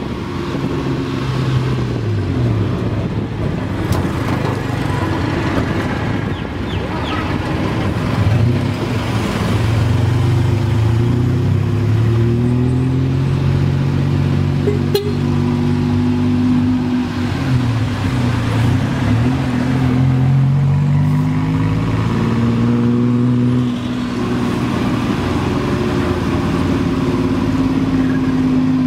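Tuk-tuk engine running under way, its pitch repeatedly rising as it accelerates and dropping back as it shifts or eases off. Street traffic around it.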